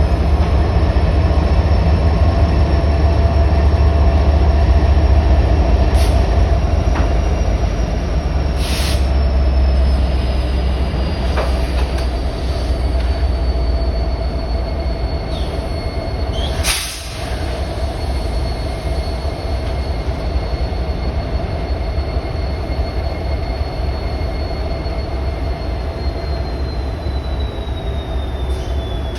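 Union Pacific freight train cars rolling past with a steady low rumble and a thin, high wheel squeal that slowly drifts lower in pitch, with a few sharp clanks along the way.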